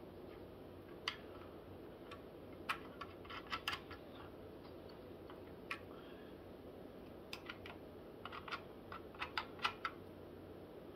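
Scattered small clicks and taps of metal mounting hardware as the thumb nuts for the Noctua NH-U12S cooler mount are fitted by hand onto the threaded posts. The clicks come singly or in short clusters, with a quicker run of them near the end.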